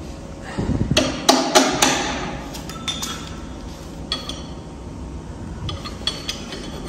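Sharp metal clinks and knocks as grinding blades are fitted onto the heads of a floor grinding machine: a quick run of ringing clinks about a second in, then scattered single clinks.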